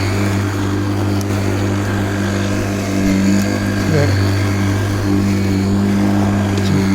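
Worx 40 cm cordless battery lawnmower running steadily, its electric motor and spinning blade giving a constant even hum.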